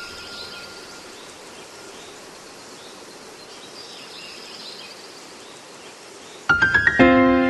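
Steady hiss of rain during a thunderstorm. About six and a half seconds in, music breaks in with a run of piano notes.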